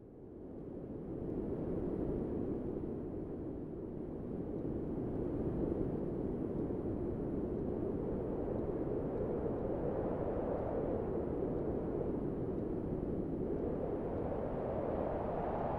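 Wind sound effect: a low, steady rushing noise that fades in from near silence over the first second or two and then holds steady.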